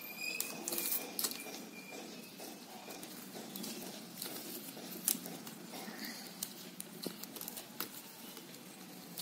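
Flat plastic basket-weaving wire rustling and ticking against itself as hands work strands into a knot, with scattered sharp little clicks throughout.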